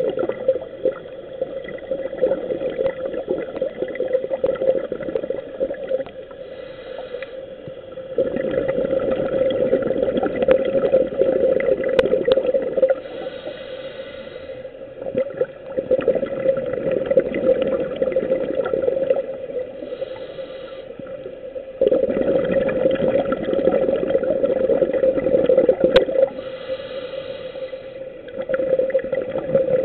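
Scuba diver breathing through a regulator underwater: long bubbling exhales lasting three to four seconds each, alternating with a quieter hiss of the inhale, repeating about every six seconds.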